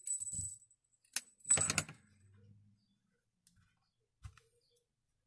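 Handling noise of fabric pieces and sewing tools on a work table: a crackly rustle and a few sharp clicks in the first two seconds, then a single light knock about four seconds in.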